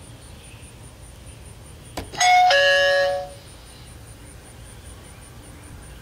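A click as the RCA HSDB2A video doorbell's button is pressed, then a two-note ding-dong chime: a short higher note, then a longer lower note, about a second in all.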